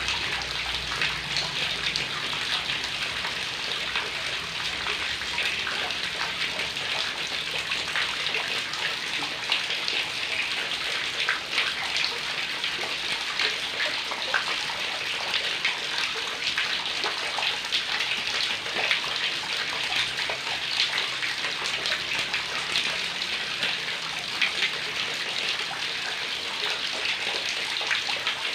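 Heavy rain falling steadily, a dense even hiss with countless individual drops ticking and splashing.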